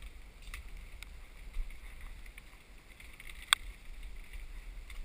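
Footsteps of a hiker on a trail, a few soft steps and one sharp click about three and a half seconds in, over a low rumble of wind and handling on the microphone.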